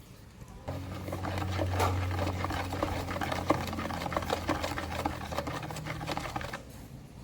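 A small electric motor runs steadily for about six seconds with a rattle of rapid clicks over the hum, then stops near the end.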